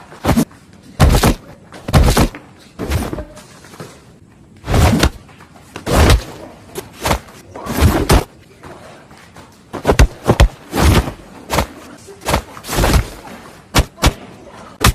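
Dubbed-in fight sound effects for a choreographed martial-arts fight: a fast, irregular string of sharp punch and kick hits and thuds, some with a short swoosh or ringing tail, about twenty in all.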